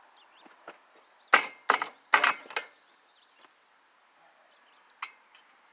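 A quick cluster of four or five sharp wooden and metal knocks and creaks, about a second and a half in, from the loaded pallet and engine hoist being handled, then a single light click near the end.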